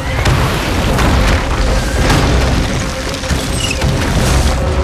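Movie sound effects of volcanic debris falling and exploding on impact: repeated booms and crashes over a continuous deep rumble, with a music score mixed in.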